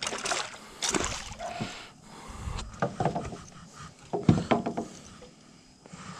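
Irregular knocks, scuffs and low thumps with a little water splashing while a hooked redfish is landed at a wooden dock.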